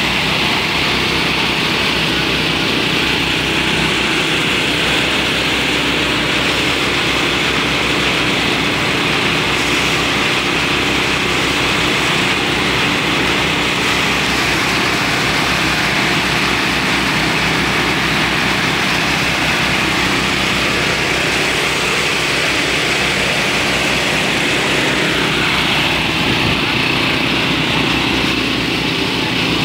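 Motorised rice thresher: a small petrol engine running steadily, driving the threshing drum through a belt.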